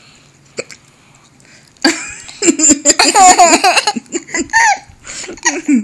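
Two young children laughing hard: a loud run of giggling starts about two seconds in and breaks into shorter bursts of laughter toward the end.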